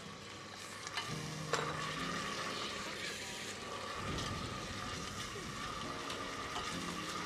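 Steady sizzle of chopped leeks sautéing in oil in a pot being stirred, over water boiling with pasta in a steel pot. A couple of light clinks come about a second and a second and a half in.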